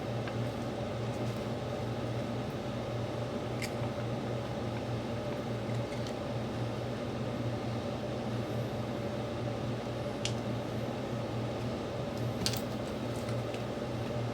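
Steady low mechanical hum of room machinery, with a few soft clicks along the way.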